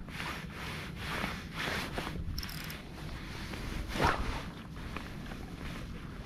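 Fly line rasping as it is stripped in by hand through the rod guides, a series of short pulls. About four seconds in comes one sharper, louder swish as the rod is lifted and the line tears off the water to set up a Spey cast.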